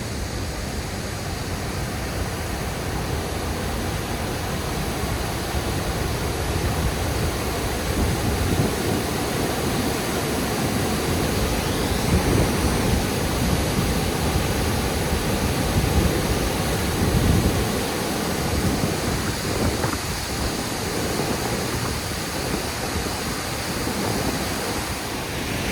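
Honeoye Falls waterfall, a steady, full rush of falling water.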